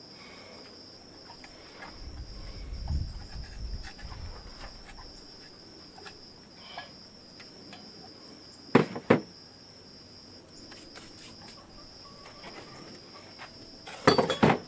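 Insects chirring steadily and high throughout. Two sharp metal clanks about nine seconds in, and a louder clatter of steel tube and hammer being picked up near the end.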